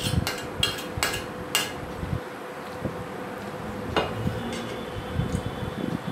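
Stainless-steel plates and bowls clinking against each other and the table, several quick clinks in the first second and a half and one more about four seconds in, over a faint steady hum.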